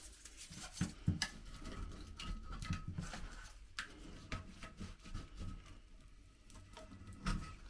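Scattered light clicks, taps and scraping of small hard parts being handled and worked on by hand, with a few sharper knocks about a second in and near the end.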